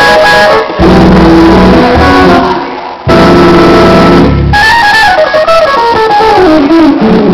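Hammond B3 organ played loud: full held chords over a heavy bass, breaking about halfway into a fast run of notes stepping down in pitch, then chords again near the end.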